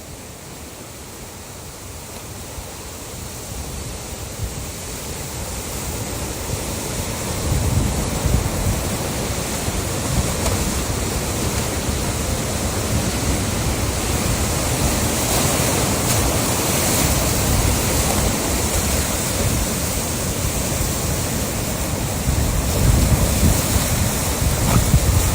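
Ocean waves crashing: a continuous rush of surf that swells up over the first several seconds, with heavier breaking waves about eight seconds in and again near the end.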